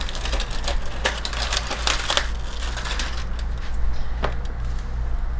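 Aluminium foil crinkling and crackling as it is peeled back off a baking tray of ribs and crumpled aside, busiest in the first couple of seconds, then a few scattered crackles.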